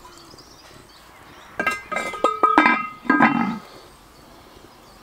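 Cast-iron lid set onto a cast-iron Dutch oven: a cluster of metal-on-metal clanks and scrapes with a ringing tone, starting about one and a half seconds in and lasting about two seconds.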